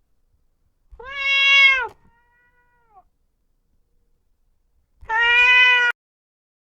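A domestic cat meowing twice, about four seconds apart. Each meow is a drawn-out call of about a second, held level in pitch, and the first drops off at its end.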